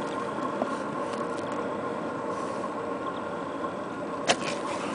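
An engine idling steadily with a low, even hum, and a single sharp click a little after four seconds in.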